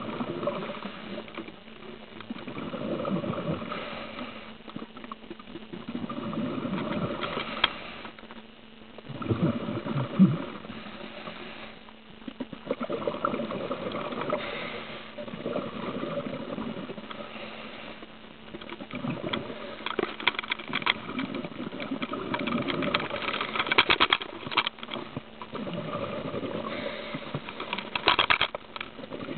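Scuba regulator exhalations heard underwater: bursts of bubbles gurgling and crackling, swelling and fading every few seconds.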